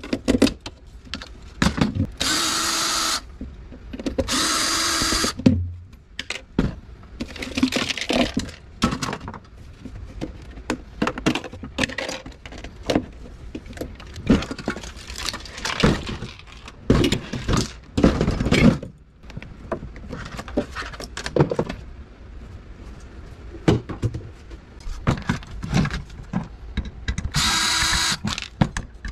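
DeWalt cordless drill/driver whirring in short runs of about a second, twice near the start and once near the end, backing screws out of a wine fridge's plastic liner and fan assembly. In between come sharp clicks, knocks and clatter of plastic and metal parts being pried and handled.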